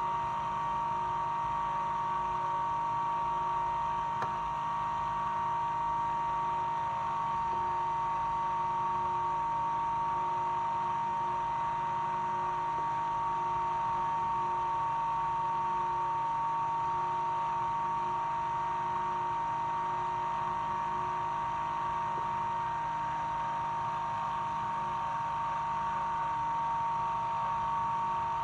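Dynamax 127 mm electric ducted fan with a TP-5850 700kv motor running steadily at low throttle, about 3,000 rpm, with a steady high whine.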